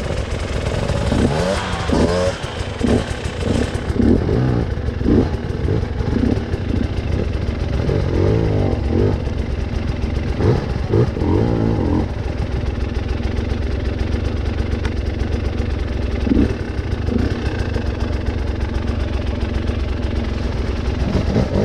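Trail motorcycle engine running under load, its pitch rising and falling with repeated throttle blips for the first half, then holding a steadier note.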